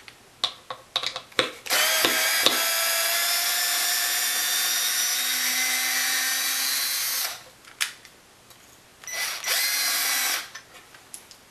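Milwaukee 2401-22 12-volt cordless screwdriver motor driving a 3.5-inch wood screw. It runs steadily for about five seconds, its pitch sinking slightly as the load builds, and gives a second short run near the end. A few handling clicks come before it.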